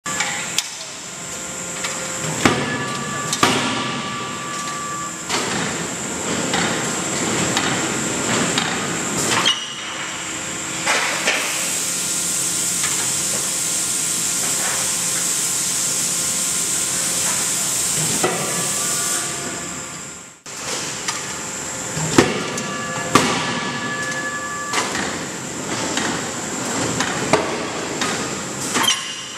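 Heavy forging hammer striking hot steel: irregular sharp blows that ring on, with a steady hiss lasting several seconds in the middle.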